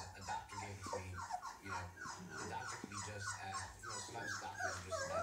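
Small dogs whining in a rapid string of short high-pitched cries, about three a second.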